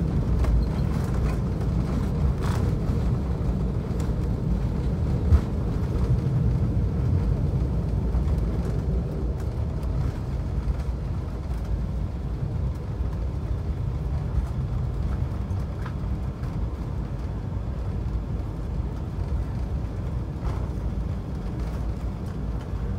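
Inside the cabin of an Embraer E195 airliner taxiing after landing: a steady low rumble from its CF34 turbofans at low power and the wheels on the taxiway, slowly getting quieter, with a light bump about five seconds in.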